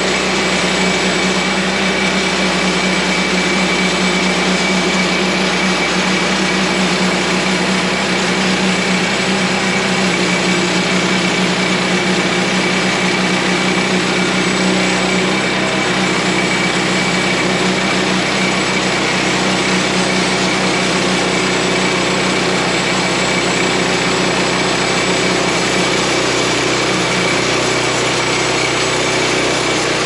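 Woodland Mills portable bandsaw mill with its small gas engine running steadily while the band blade cuts along a log. The sound holds the same loudness and pitch throughout.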